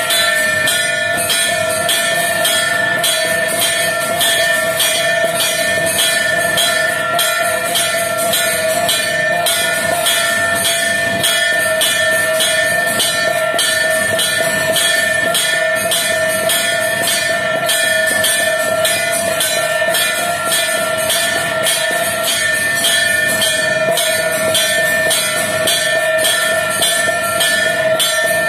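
Temple bells ringing continuously during worship: fast, evenly repeated metallic clangs over a sustained ring that does not let up.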